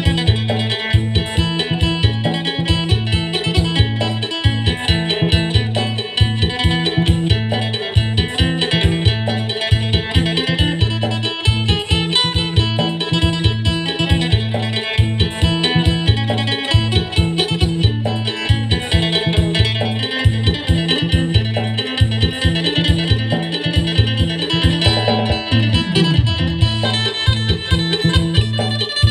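Acoustic phin, the Isan Thai plucked lute, playing a fast, densely picked melody in sing style over a repeating low bass line.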